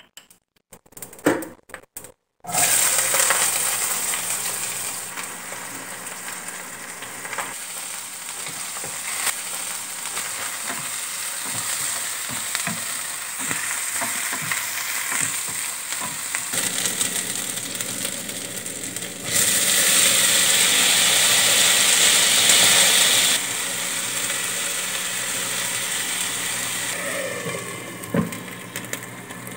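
Spices and sliced onions frying in hot oil in a non-stick kadai: a steady sizzle, with a spatula clicking and scraping as it stirs. The sizzle jumps louder for a few seconds past the middle and falls off near the end as a glass lid goes on the pan.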